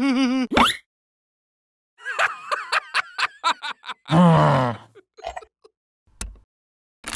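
Cartoon-style nonverbal character voices: a wavering, trembling vocal at the start, a run of quick pitched chatter around two to three seconds in, then a loud falling groan. A few sharp clicks follow near the end.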